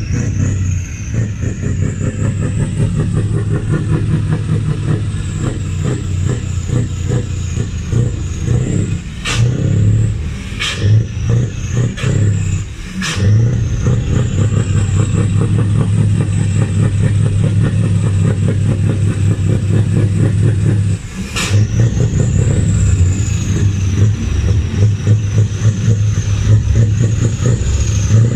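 Heavy truck engine running close by, a loud steady low drone with a high whine that rises and falls above it. The drone briefly drops a few times, with sharp clicks alongside.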